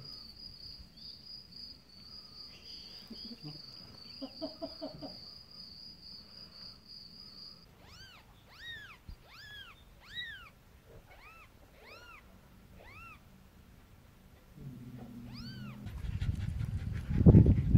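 A newborn kitten mewing, about a dozen thin high-pitched mews in a row, after a steady pulsing chirp of crickets. Near the end a louder low rumbling noise takes over.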